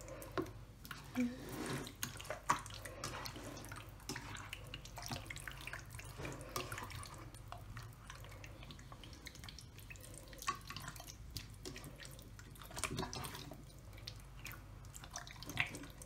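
A bare hand kneading raw chicken pieces in a wet marinade in a pot: faint, irregular wet squelches and small smacks.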